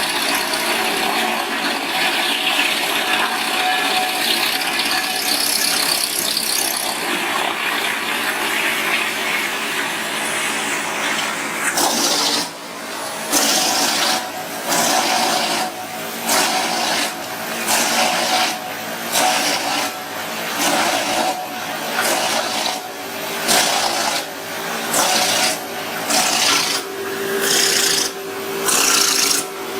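A wood-processing machine cutting into timber with a steady rasping grind. About twelve seconds in it turns into a regular beat of strokes, roughly one a second.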